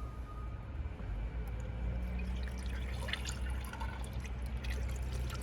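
BG EPR engine flush being poured from its bottle into the engine's oil filler, with small irregular splashes from about halfway in, over a steady low hum.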